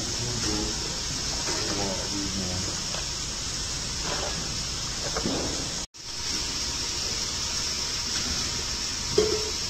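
Steady hiss of commercial kitchen background noise, with faint voices now and then. The sound drops out for an instant about six seconds in.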